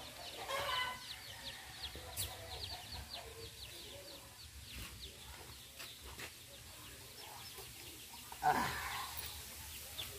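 Free-ranging native chickens clucking. A louder call comes about half a second in and another comes near the end, over a fast run of short high chirps in the first few seconds.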